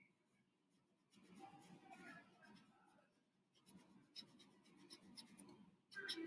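Faint scratching of a paintbrush's bristles dabbing paint onto a textured canvas in short strokes, coming in two spells of a second or two.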